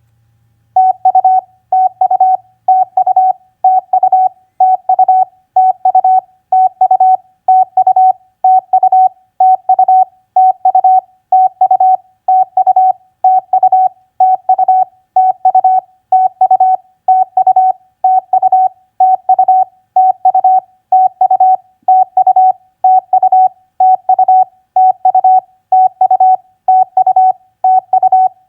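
Morse code practice tone: one steady beep keyed on and off at 25 words per minute, sending short groups about once a second, starting just under a second in.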